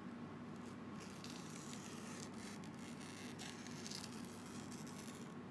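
Faint crisp rustling and crackling of a banana leaf being cut and handled, in a few irregular spurts, over a steady low hum.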